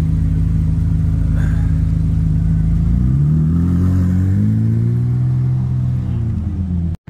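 Chevrolet Corvette C8 Z06's 5.5-litre flat-plane-crank V8 idling steadily, then revving up smoothly about three seconds in and easing back down over the next few seconds.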